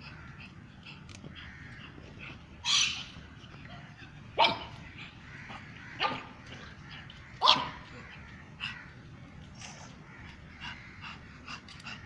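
Pug barking in about five short, sharp barks spread a second or two apart, with the loudest near the middle.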